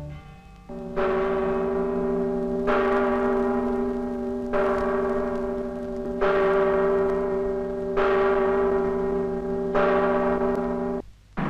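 A bell tolling slowly, six strokes less than two seconds apart, each ringing on into the next. The ringing stops abruptly near the end.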